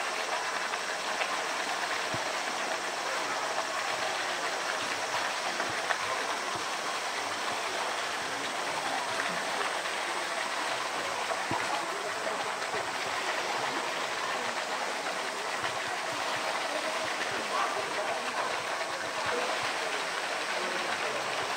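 Steady rush of water in a polar bear pool, with indistinct chatter of onlookers mixed in.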